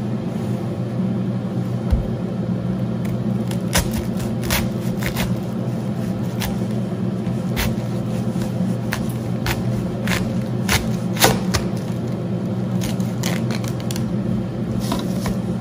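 A head of raw green cabbage being stripped of leaves and sliced with a kitchen knife on a cutting board: irregular crisp crunches, snaps and knife taps. A steady low hum runs underneath.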